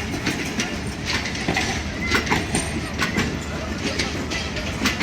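Passenger train rolling past on departure: a steady rumble with irregular clacks and knocks of wheels over the rail joints.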